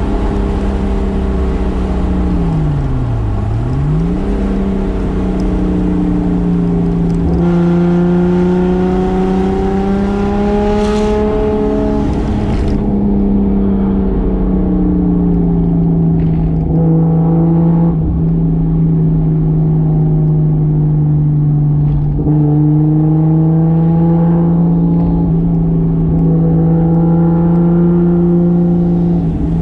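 Toyota Soarer's single-turbo 2JZ inline-six running on the road. About three seconds in the revs drop sharply and come straight back up, as in a gear change, then the engine note holds fairly steady with slow rises and falls.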